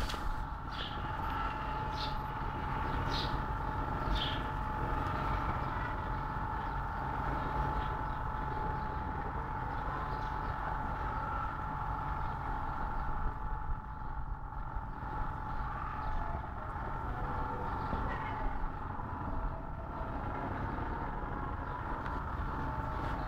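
Steady low rumble with a constant mechanical hum, with a few faint short ticks in the first few seconds.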